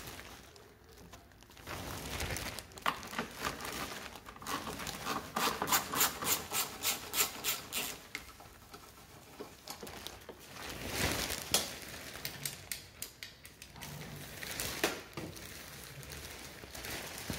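Handling noises from work on a scooter's bodywork: rustling and rubbing, with a quick run of clicks about four a second a few seconds in and a few scattered knocks.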